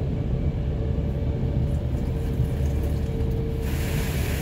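Steady low rumble and hum heard from inside a van's cabin in an automatic car wash tunnel. About three and a half seconds in, a hiss of water spray starts against the van as the restarted wash's sprayers come on.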